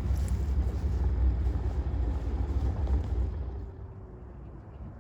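Car V8 engine and exhaust rumbling loudly, the low rumble falling away sharply about three and a half seconds in to a quieter steady rumble.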